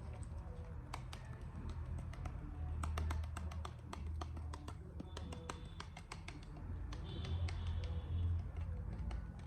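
Close-miked ASMR tapping and clicking: irregular light taps in quick clusters over a low steady hum.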